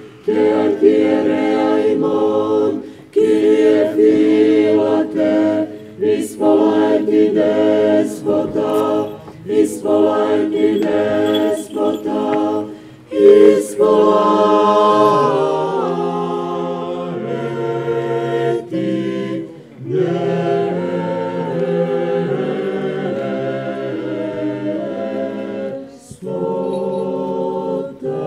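Orthodox church choir singing liturgical chant a cappella in several voice parts, in phrases with short pauses between them.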